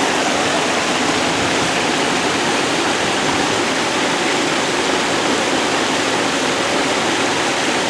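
Water from an artificial waterfall rushing in a steady, loud, even wash.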